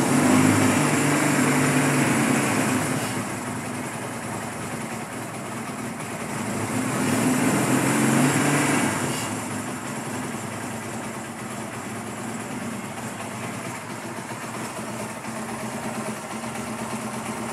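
1974 Honda CL200's small parallel-twin engine running, revved up with the throttle at the start and again about seven seconds in, and running steadily at a lower speed between and after.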